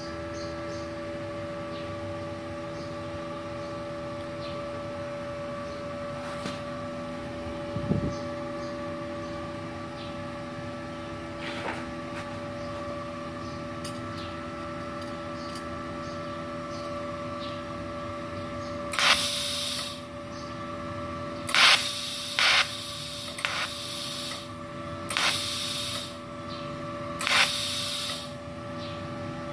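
MultiPro TIG 200A-SA inverter TIG welder switched on and idling, a steady electrical hum with a few fixed tones. About two-thirds of the way in come five loud, short rushing hisses, each lasting up to a couple of seconds, at the torch end.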